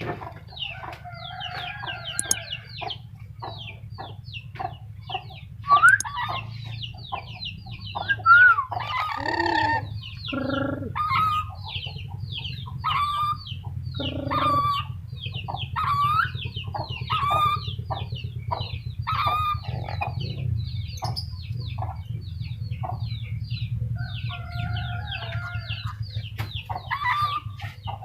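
Black-capped lory calling in a long run of short, rapid chattering calls, with a few louder, longer calls near the middle, over a steady low hum.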